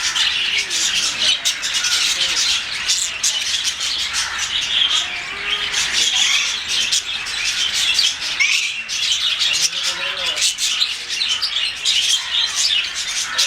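A flock of lovebirds chattering: a steady stream of shrill chirps and squawks that overlap without a break.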